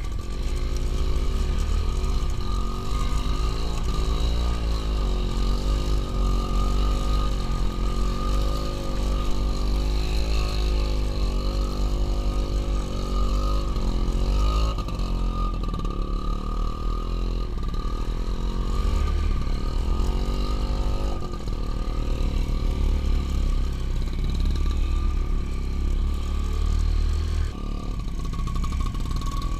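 Motorcycle engine running and revving, its pitch rising and falling again and again as it works over rough ground, over a strong low rumble.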